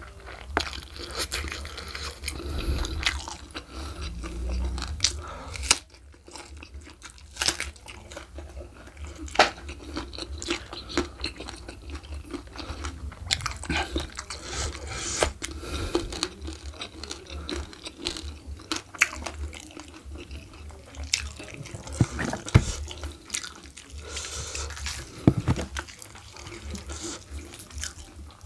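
Close-miked eating sounds: chewing and crunching food by mouth, with many sharp, wet clicks. Bare, sauce-covered hands are squishing through sambal, rice and spiced oxtail.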